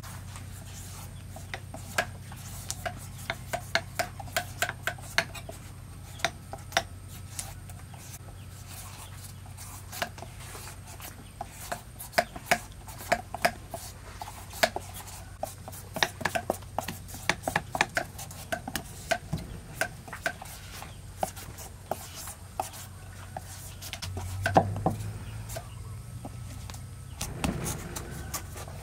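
Large kitchen knives shaving the skin off green papayas: a quick, irregular run of short scraping and slicing strokes. A steady low hum sits underneath.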